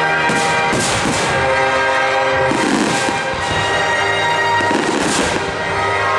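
Fireworks finale: aerial shells bursting with sharp reports in clusters, several close together, over music with sustained chords.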